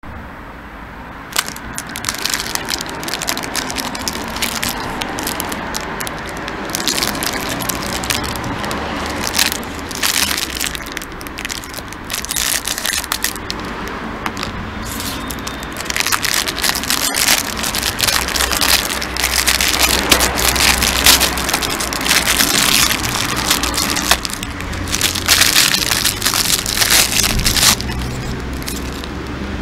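Thin clear plastic bag crinkling and crackling as it is handled and opened by hand, starting about a second in and continuing in irregular crackles. A steady low rumble runs underneath.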